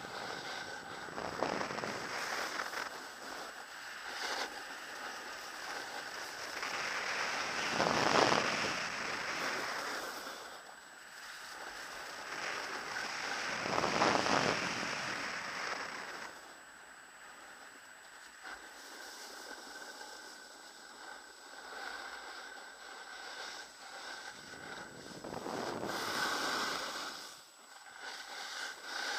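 Skis sliding over groomed snow: a steady scraping hiss that swells into louder surges as the edges bite, loudest about 8 and 14 seconds in.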